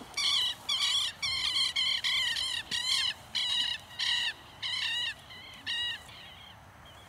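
An animal's shrill, repeated calls, about three a second, growing weaker and stopping about six seconds in.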